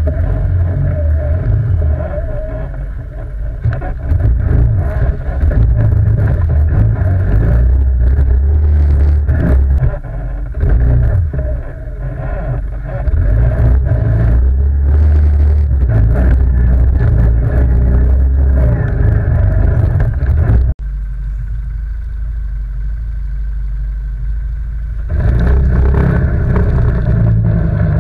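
ATV quad bike engine running under changing throttle while riding, as a loud, uneven rumble. It drops off abruptly about three-quarters of the way through, stays quieter for a few seconds, then picks up again.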